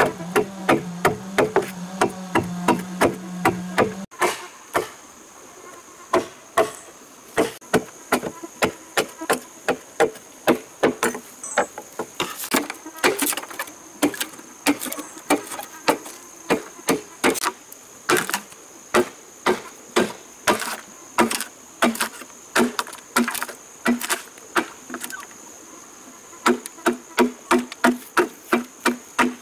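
A large knife chopping into a green bamboo pole in quick, even strokes, about two to three a second, cutting out slots in the bamboo wall. Insects keep up a steady high buzz behind the strokes from a few seconds in.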